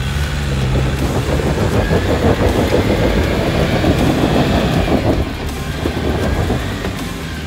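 Off-road 4WD's engine revving hard under load, with tyres spinning and scrabbling in loose dirt as it climbs out of a deep rut. Loudest in the middle, easing off after about five seconds.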